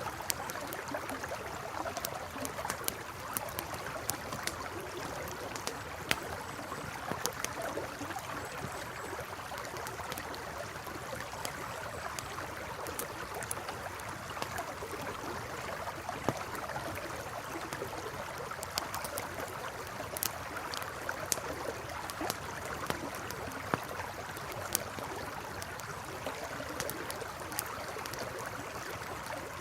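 A river flowing steadily, with a wood campfire crackling over it in scattered sharp pops.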